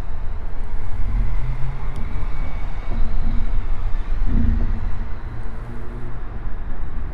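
Steady deep low rumble with faint held tones above it, swelling briefly about four and a half seconds in.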